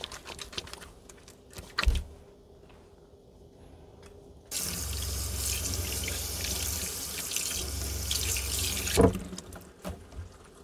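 Small caravan washbasin tap running for about four and a half seconds while hands are washed under it, with a low hum beneath the flow. A few light clicks and a sharp click come before the water, and a knock as it stops.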